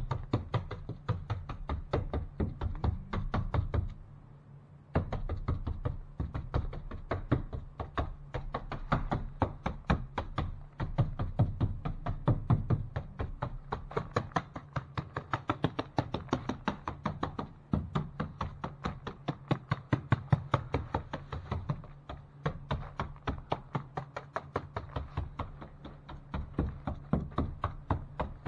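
Rapid, steady knocking of a stomp texture brush slapped against wet drywall mud, about three to four strikes a second over a low hum, pausing briefly about four seconds in.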